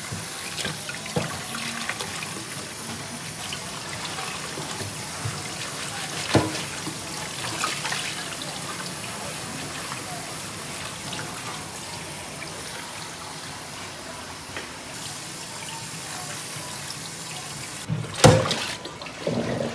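Kitchen tap running steadily into a stainless steel bowl as fish fillets are rinsed in it by hand, with a few light knocks. There is one loud knock near the end.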